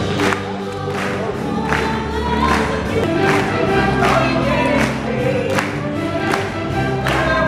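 A stage musical's full cast singing together in chorus over a band with a steady beat.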